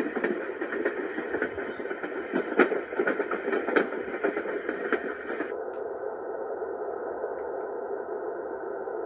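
Baby white noise machine playing a sound track through its small speaker: a crackly hiss scattered with clicks, which switches about five and a half seconds in to a smoother, duller steady hiss.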